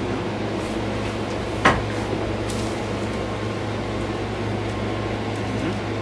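Steady low hum of room tone from a running machine such as an air conditioner or fan, with one sharp click about a second and a half in.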